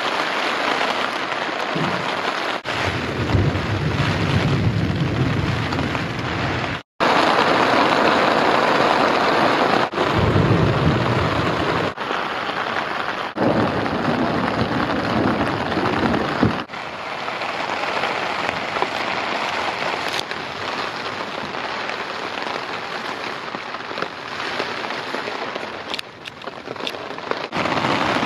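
Heavy rain drumming on a tent's fabric, heard from inside the tent, with deep rolls of thunder a few seconds in and again around ten and fourteen seconds.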